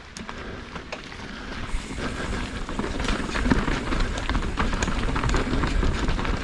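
Mountain bike rolling fast down a dirt trail: tyre noise, the chain and frame rattling with many small clicks, and wind rumbling on the microphone. It gets louder about two seconds in as the bike picks up speed.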